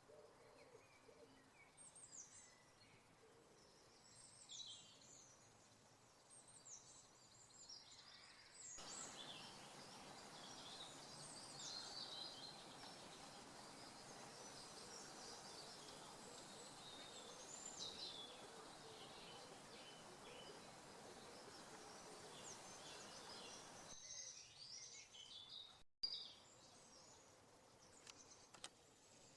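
Faint woodland birdsong: several small birds singing and chirping in short high phrases. From about nine seconds in to about twenty-four seconds a steady hiss lies under the song, and a single sharp click comes near the end.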